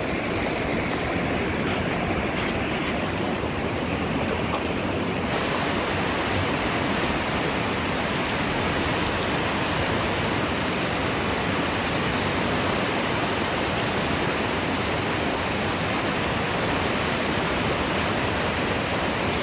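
Whitewater river rapids rushing steadily around a boulder. The hiss gets brighter about five seconds in.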